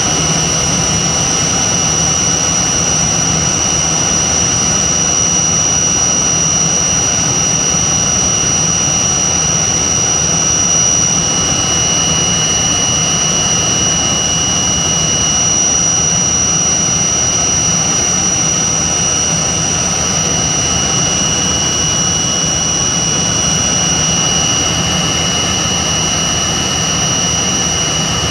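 Cabin noise of a Tupolev Tu-134B-3 in flight: its rear-mounted Soloviev D-30 turbofans running steadily, an even rush with a constant high whine over it.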